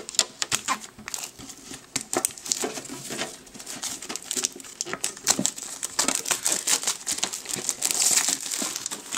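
Clear plastic shrink-wrap being peeled off a metal collectible card tin, crinkling and crackling in a dense, irregular run of sharp crackles, busiest near the end.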